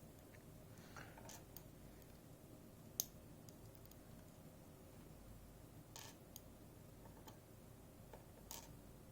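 Faint, scattered clicks of small metal lock parts and tools being handled as a Robur safe deposit lock is taken apart, with one sharper click about three seconds in.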